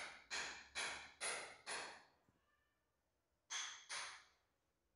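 Footsteps scuffing on a bare, gritty concrete floor, faint, about two steps a second, stopping for about a second and a half in the middle before two more steps.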